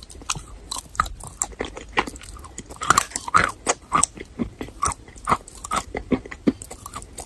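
Chalk with paste being bitten and chewed, with creamy and crunchy sounds: a quick, irregular run of crisp crunches that is loudest around three to four seconds in.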